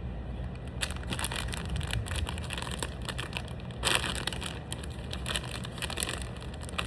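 Silver wrapper of a chocolate bar crinkling and crackling as it is handled, with a louder crackle about four seconds in.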